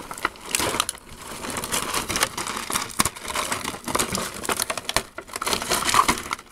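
Clear plastic packaging bag crinkling and rustling as it is handled, with a few sharp clicks among the crackle.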